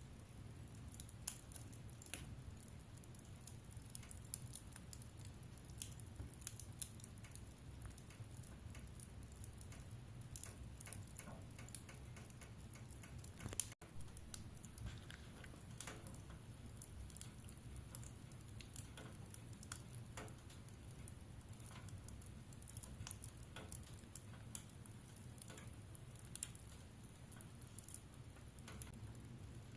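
Wood fire crackling: irregular sharp snaps and pops over a low steady rumble, with a split-second break in the sound about halfway through.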